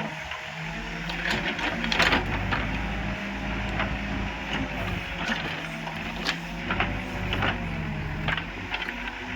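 Backhoe loader's diesel engine working steadily under load, its pitch wavering slightly, with scattered sharp metallic clanks and knocks throughout.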